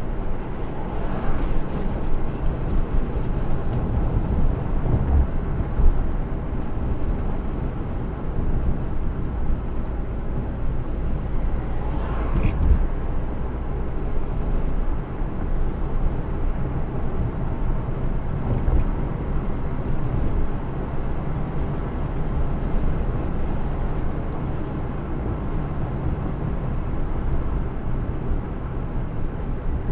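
Car driving along a road: a steady low rumble of engine and tyre noise, with a brief swish about twelve seconds in.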